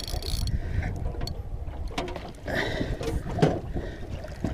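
Spinning reel being wound in against a hooked fish, with short clicks over a steady low rumble of wind and water around the boat.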